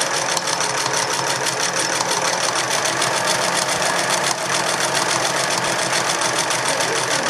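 Singer Merritt free-arm electric sewing machine running steadily at speed, its needle mechanism stitching in a fast, even rhythm.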